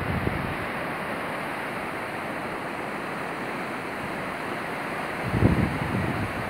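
Steady rushing of a fast-flowing river in flood, with wind buffeting the microphone in a gust near the end.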